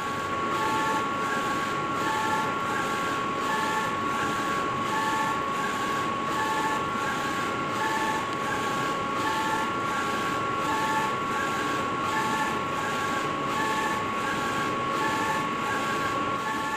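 NoCai UV flatbed printer running a print pass on acrylic plaques, its print-head carriage sweeping back and forth. It makes a steady machine whine, with a second tone that comes and goes about every three-quarters of a second.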